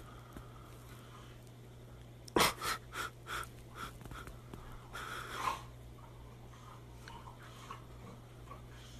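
A dog snorting and wheezing as it wriggles on its back on carpet: a quick run of about six short snorts that fade, a couple of seconds in, then a longer wheezy breath about five seconds in.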